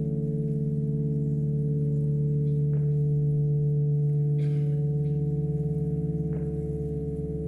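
Ambient drone music: layered sustained tones held steady, with a soft bell-like ping ringing out every three and a half seconds or so. A brief hiss passes about four and a half seconds in.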